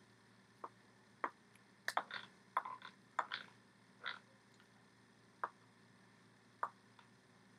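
About a dozen faint, irregular taps and slaps of hands meeting each other and the body during fast sign language, bunched in the first half and sparser after.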